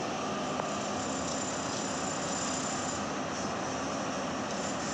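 Tata Hitachi tracked excavator running steadily under load as it works its demolition attachment against concrete, a dense mechanical din with a steady high whine on top.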